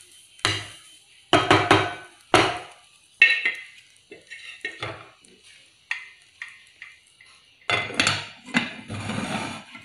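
Wooden spatula knocking and scraping against an aluminium pot of rice as it is stirred: a few sharp, ringing knocks in the first couple of seconds, then lighter clicks. Near the end comes a louder clatter as the metal lid goes onto the pot.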